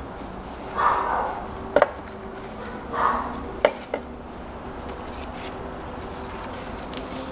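Ignition coils being worked loose and pulled from the spark-plug wells of a Kia Ceed 1.4 GDI engine by hand. There are two short rubbery scrapes and a few sharp plastic clicks and knocks in the first half, and the second half is quieter.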